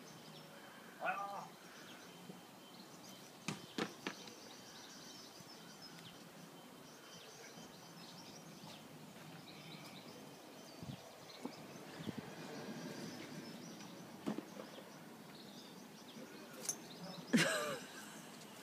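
Quiet garden background with faint bird chirps and a few scattered sharp clicks and rustles, the loudest near the end.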